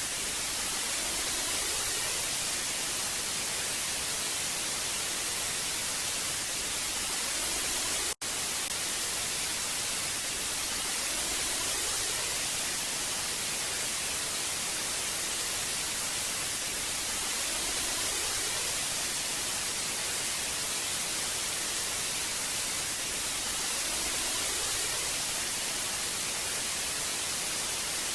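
Old analogue television static: a steady, hissing snow noise, brightest in the treble, with a split-second dropout about eight seconds in.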